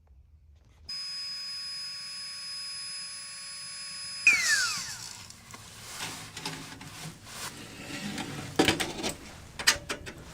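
A small power tool's motor whines at a steady pitch. Then comes a sudden loud knock, the pitch falls away, and scattered knocks and scraping follow.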